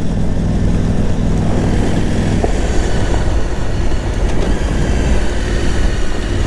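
Adventure motorcycle engine running steadily under way, mixed with a steady rushing noise. The engine note sinks into the rushing about two and a half seconds in and comes back near the end.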